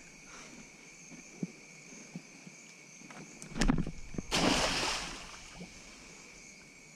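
A collapsible mud crab pot thrown into a creek hits the water with a splash about four seconds in, just after a couple of sharp knocks. Insects shrill steadily and faintly behind it.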